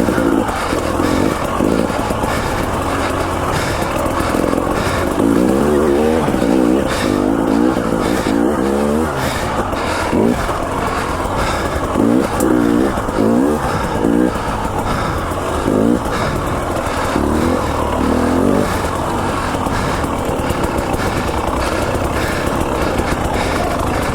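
KTM 300 XC-W TPI two-stroke dirt bike engine being ridden hard on trail, revving up and down in repeated bursts of throttle. Scattered sharp knocks come through over the engine.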